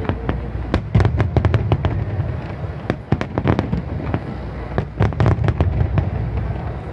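Aerial firework shells bursting in a rapid barrage: many sharp bangs close together over a continuous low rumble.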